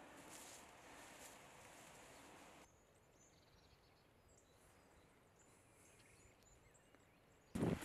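Faint soft rustling, like footsteps through dry leaf litter, which drops away about three seconds in to quieter forest ambience with a few faint bird chirps. A sudden loud noise breaks in near the end.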